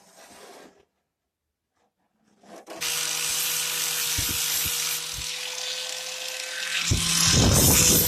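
Small power tool starting up about three seconds in and running with a steady high whine, then getting louder and rattling harshly from about seven seconds in as it cuts through sheet steel to make a vent-box cover plate.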